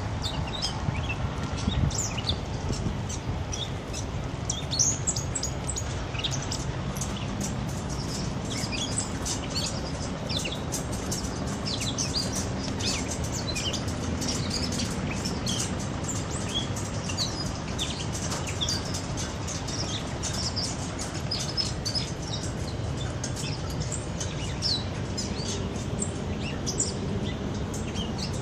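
Many small songbirds chirping and singing: a busy scatter of short, high chirps, over a steady low rumble.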